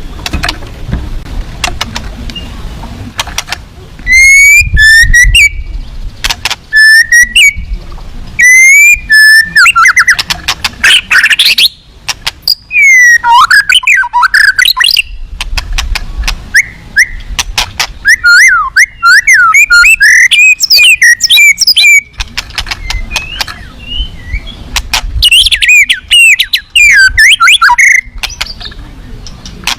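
Caged white-rumped shama (murai batu) singing loudly: bursts of clear whistles and fast, varied chattering phrases, full of learned imitations of other birds' songs. Sharp clicks sound between the phrases.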